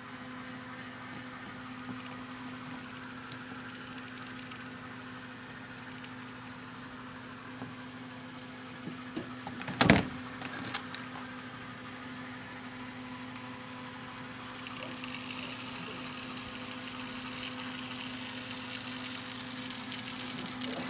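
Athearn Challenger model steam locomotive's small electric motor and gear drive running with a steady hum and a grinding noise, a sign the drive is not working right. A sharp click comes about ten seconds in, and a rougher rasp grows from about fifteen seconds on.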